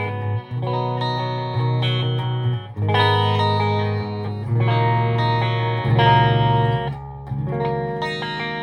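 Electric guitar with Seymour Duncan JB humbuckers, played through a PRS MT-15 V2 valve head into a 1x12 cab with a Celestion Vintage 30 and heard by a mic in the room. It plays ringing chords that change every second or two.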